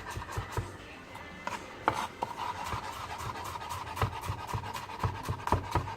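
Knife mincing garlic on a cutting board: a run of irregular chopping knocks, some louder than others.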